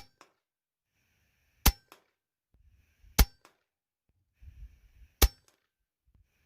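Hatsan Nova .177 PCP air rifle firing 20 grain dish base hollow point slugs: four sharp shots about every one and a half to two seconds, each followed a moment later by a faint tick.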